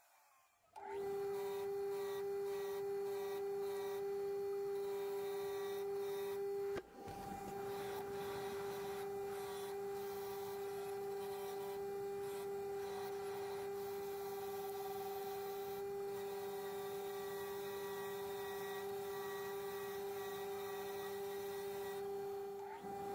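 Mac Afric bench grinder running with a steady motor hum, its wheel spinning at speed, with a rough rubbing layer as a steel part is held against the wheel. The hum breaks off briefly about a second in and again near seven seconds.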